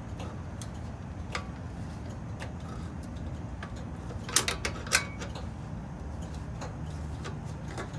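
Pliers clicking and clinking on the metal nut of a compression fitting as it is tightened onto an air line to crimp the ring. Scattered small clicks, with the two sharpest about four and a half and five seconds in, over a steady low hum.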